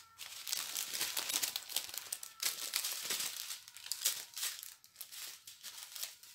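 Small clear plastic bags of round diamond-painting drills crinkling as they are handled, in quick irregular crackles.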